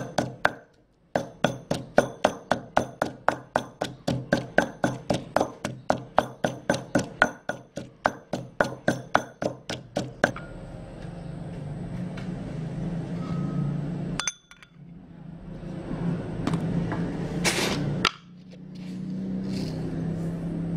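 Pestle pounding chilli and garlic in a stone mortar: hard, ringing strikes, about three to four a second. After about ten seconds the pounding stops and a steady rushing noise takes over.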